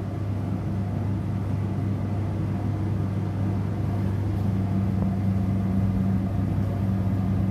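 Laboratory fume hood's extraction fan running with a low, steady hum.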